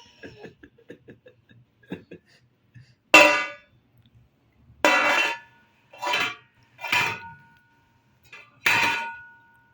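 Metal utensils struck together: a few light clinks, then five sharp clangs, each ringing briefly after the hit.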